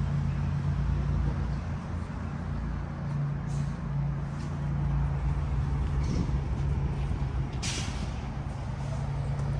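Lamborghini Urus Performante's 4.0-litre twin-turbo V8 idling steadily through its standard Akrapovič exhaust, with a short hiss about three-quarters of the way through.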